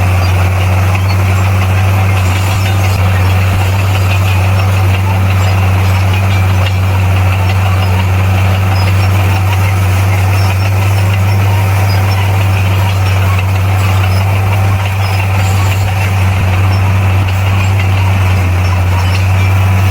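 Bulldozer's diesel engine running steadily at a constant low pitch.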